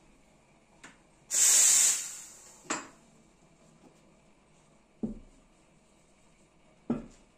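Espresso machine steam wand purged: a short, loud hiss that dies away over about a second, then a sharp click as the steam valve shuts. Later come two dull knocks as the steel milk pitcher is handled on the counter.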